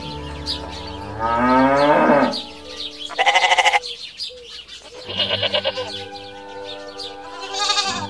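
Dubbed-in farm-animal calls over light background music: a long rising call a little over a second in, then sheep bleating twice with a wavering, pulsing voice, and a higher bleat near the end.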